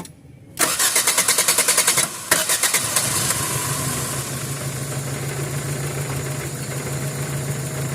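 Gasoline car engine cranked by the starter with rapid even pulses for about two seconds, catching and settling into a steady idle. It is a hard-starting engine whose fuel pressure does not hold after it sits, which the mechanic suspects comes from a leaking injector.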